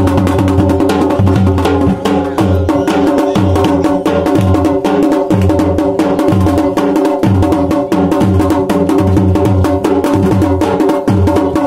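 Garhwali dhol beaten in a fast, steady rhythm for Pandav Nritya dancing, with held tones sounding under the drumming.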